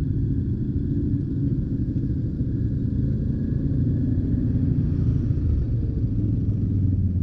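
Steady low engine rumble of side-by-side UTVs idling while parked.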